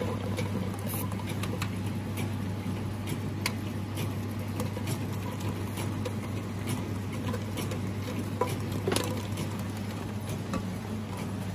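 Can conveyor on a powder-filling line running with a steady low hum, with irregular light clicks and knocks of metal cans on the conveyor and guide rails. A couple of louder knocks come about eight to nine seconds in.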